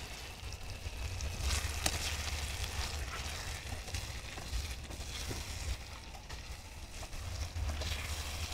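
Spaghetti sauce with ground meat sizzling in a metal wok while a metal ladle stirs it, with a few sharp clicks of the ladle against the pan over a steady low rumble.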